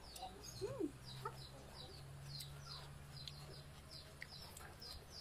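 Faint, high chirps of small birds repeating several times a second, and a single short chicken cluck that rises and falls in pitch about a second in.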